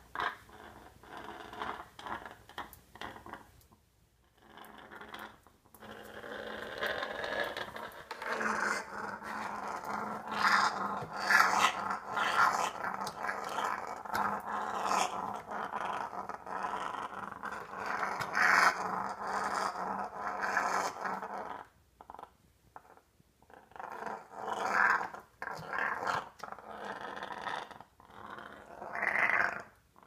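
African grey parrot growling: short growls at first, then one long unbroken growl lasting about fifteen seconds, then shorter growls with pauses, with scattered clicks throughout. It is the defensive threat growl that African greys use to ward off predators.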